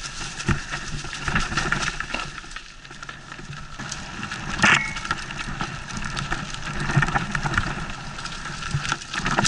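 Santa Cruz Nomad mountain bike rolling fast down a dry, leaf-covered dirt trail: tyres crunching over leaves and roots, with the chain and frame rattling over the bumps. A sharp knock about halfway through, as the bike hits something.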